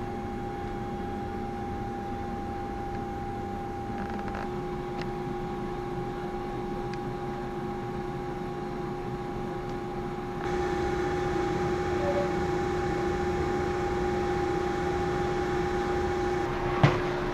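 Steady mechanical hum with two steady tones over a low even noise, stepping up a little in level about ten seconds in; no train movement is heard.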